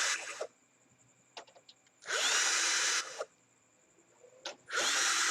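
Power screwdriver running in short spurts of about a second each, three times, backing out the screws of a Panasonic sound system's casing, with small clicks between the spurts.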